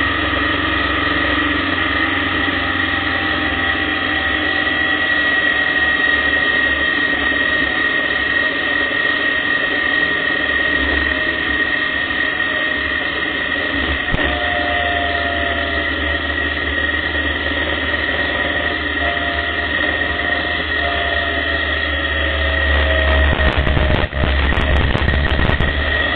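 Motorcycle engine running at road speed with wind noise on the microphone, its pitch shifting slowly through the curves. The low rumble grows louder near the end.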